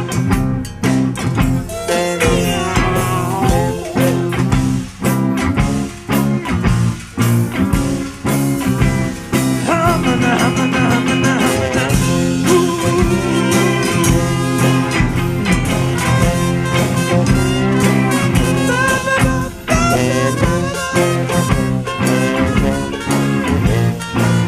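Band playing an instrumental blues-swing number with a steady beat and held melody notes over a busy accompaniment.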